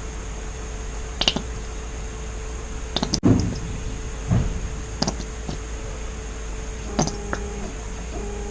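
Plastic paint bottles being handled while pouring: scattered light clicks and knocks, the loudest a little over three seconds in, over a steady low hum.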